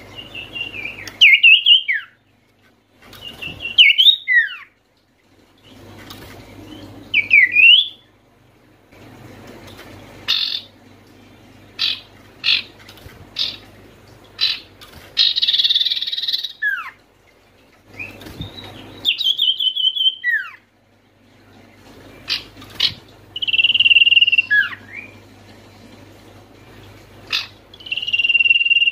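Common iora (cipoh) calling: a phrase of a high held whistle ending in a note that slides steeply down, repeated every three to four seconds, with a run of short sharp chips and one harsh rasping call about halfway through. A faint steady low hum lies underneath.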